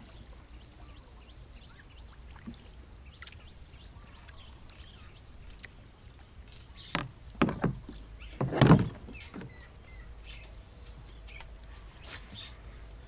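Knocks and bumps of a small fishing boat and the angler's gear being handled. Scattered light ticks run throughout, and a cluster of louder thumps comes about seven to nine seconds in, the last one the loudest.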